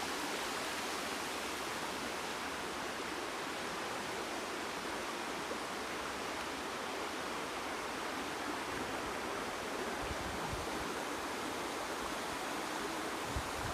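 Steady, even rushing of water, with a few brief low rumbles about ten seconds in and near the end.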